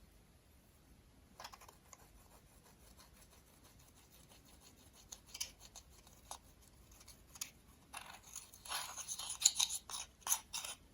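Small crisp clicks and scratchy scrapes from close-up handling, a few scattered at first, then coming thick and fast about two seconds before the end.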